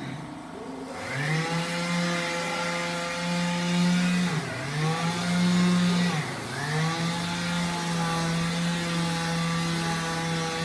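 A motor spins up about a second in and runs at a steady pitch. It sags and recovers twice, as if briefly loaded or let off, then runs on steadily.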